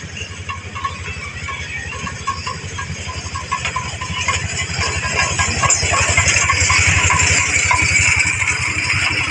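Toy train's engine running with a rapid, even chugging pulse and some rattle, growing louder from about halfway through.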